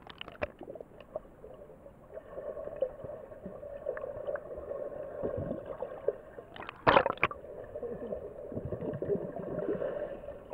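Muffled underwater sound of pool water heard through a submerged camera: a steady churning hum with gurgles and bubbles from a swimmer moving close by. A short cluster of loud sharp clicks comes about seven seconds in.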